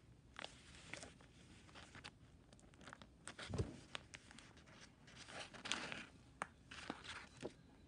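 Faint rustling and crinkling of paper, with scattered light clicks and taps, a little louder a few times in the middle.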